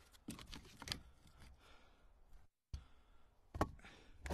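Split seasoned red oak firewood knocking wood on wood as pieces are set onto a stack, several sharp knocks in the first second and two more toward the end.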